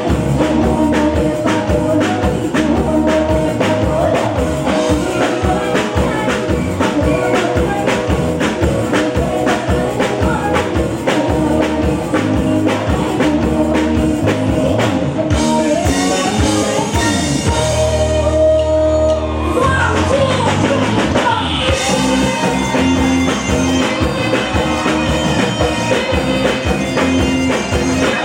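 A singer with a band playing over a steady drum-kit beat. The beat drops out for several seconds just past the middle, leaving held notes, then comes back.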